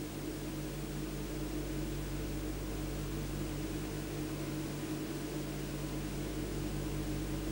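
Steady electrical hum with a constant hiss, the background noise of an old videotape transfer.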